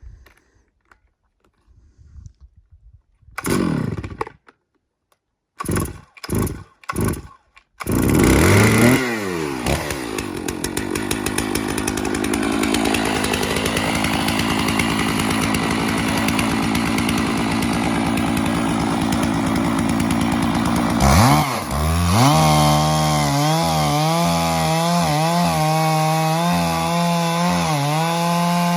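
Stihl 660 Magnum two-stroke chainsaw being pull-started: a few short sputters, then it catches about eight seconds in and runs steadily at high revs. Near the end its pitch drops and wavers as it comes under load in the cut along the log on an Alaskan chainsaw mill.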